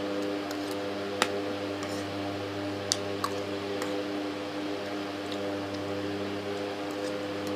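Metal spoon clinking and scraping against a ceramic plate while eating rice: a sharp clink about a second in and two more near three seconds, over a steady low hum.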